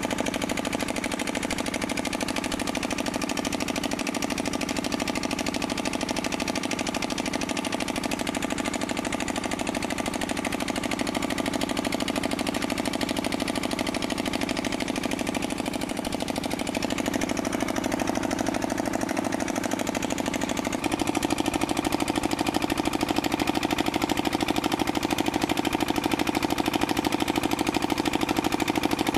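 Small diesel engine running steadily, driving a tubewell pump, with an even rapid beat. About two-thirds of the way through the sound abruptly turns louder and its tone shifts.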